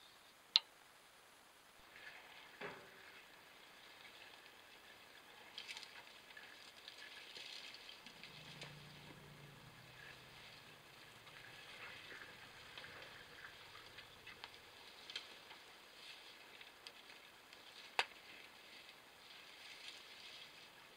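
Faint outdoor rustling and crackling, with a sharp click under a second in and another near the end, and a faint low hum partway through.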